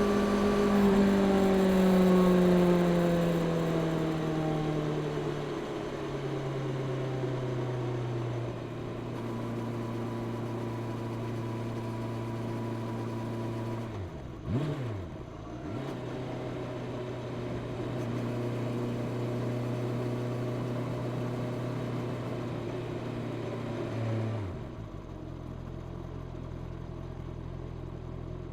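Honda CB650R's inline-four engine on its stock exhaust, under way. The revs fall over the first few seconds, then hold steady, dip sharply and recover about halfway through, and drop to a lower, quieter note near the end.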